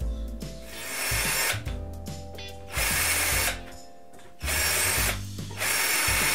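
Cordless drill-driver running in four short bursts as it works through a black metal bracket into a wooden tabletop.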